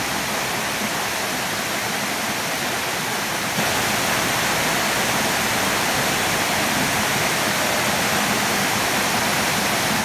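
Waterfall plunging into a rock pool: a steady rush of falling water, stepping up a little louder about three and a half seconds in.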